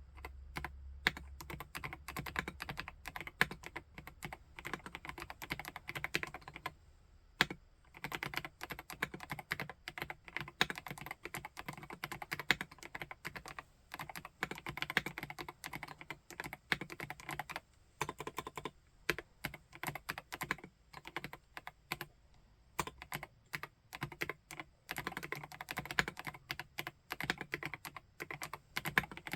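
Typing on a PK x BIOI Command 65, a 65% custom mechanical keyboard fitted with SP-Star RedBlue keycaps: fast, irregular keystrokes in continuous runs, broken by a few brief pauses.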